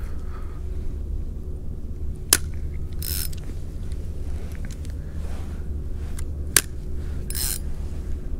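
Spinning reel being worked: two sharp clicks about four seconds apart, each followed by a short hiss, over a steady low rumble.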